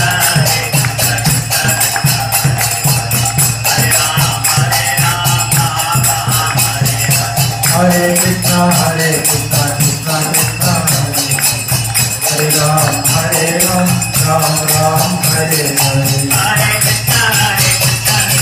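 Hare Krishna devotional kirtan: a man singing a bhajan over small hand cymbals ringing in a fast, steady rhythm, with a steady low accompanying tone underneath.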